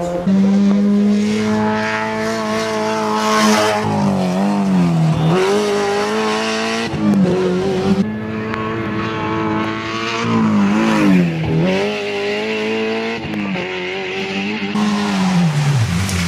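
Rally car engine revving hard, its pitch dropping and climbing again several times as the driver shifts gear and lifts off through the stage.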